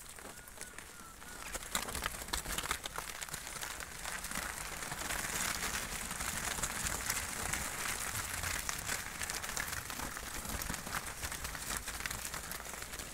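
Many hooves of a flock of fat-tailed sheep crunching and shuffling on trampled, frozen snow and straw, a dense steady crackle that grows louder about two seconds in.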